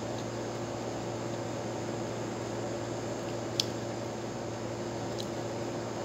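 Mouth sounds of someone eating grapes: a sharp wet click about halfway through and a fainter one near the end, over a steady hiss and hum.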